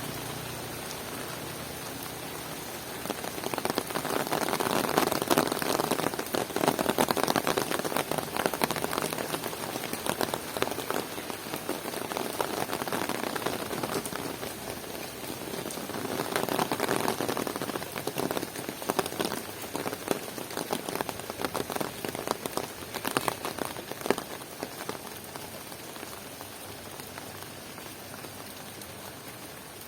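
Rain falling steadily, a dense patter of drops hitting surfaces, swelling louder a few seconds in and again about halfway through.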